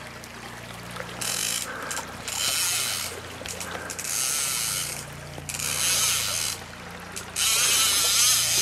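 Fly reel's ratchet drag rasping in five bursts, the last the longest, as line runs on and off the reel while a hooked salmon is played.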